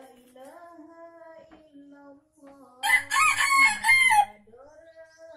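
A red junglefowl rooster crows once about three seconds in: a loud call about a second and a half long, broken into several short notes.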